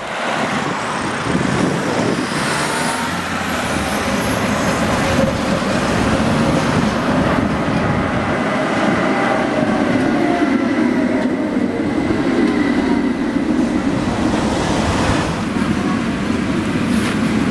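Tatra KT4 articulated tram running in on street track and slowing for a stop: wheel and rail rumble that grows as it nears, a thin high squeal held through the middle, and a whine that slowly falls in pitch as it slows.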